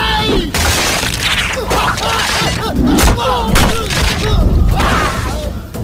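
Film fight-scene sound: a run of sharp hits and whooshes with men's short shouts and grunts.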